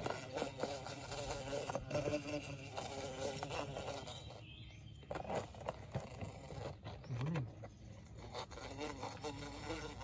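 Large bee buzzing inside a clear plastic tub, its buzz wavering and coming in bouts, weaker in the middle and back near the end. Sharp clicks of the plastic lid being handled and pressed shut.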